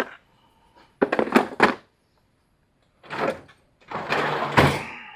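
Metal hand tools clattering and clinking as they are handled, then a longer scraping rattle that ends in a heavy thump near the end.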